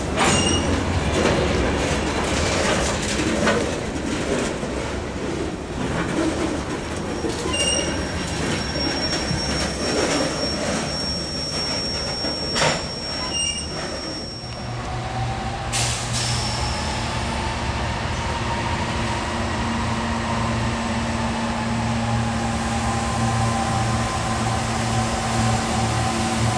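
Freight train of covered hopper cars rolling past, with wheels clicking over rail joints and a high steady wheel squeal through the middle. After a cut, an approaching diesel locomotive's engine runs steadily with a whine that rises and then falls.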